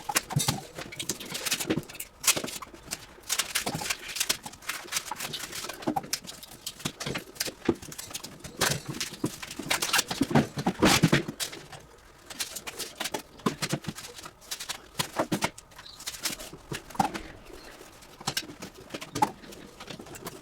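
Irregular knocks, taps and clatter of hand work on metal and plastic parts of a refrigeration unit being taken apart.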